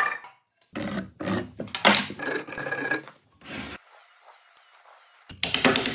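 A tool rasping on wood in several short strokes, followed by a short lull with a faint hum; a fast run of clicks starts near the end.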